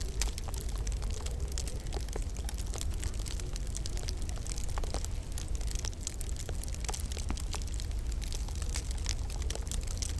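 Wood fire burning in a log burner, crackling with frequent small sharp pops at irregular intervals over a steady low rumble.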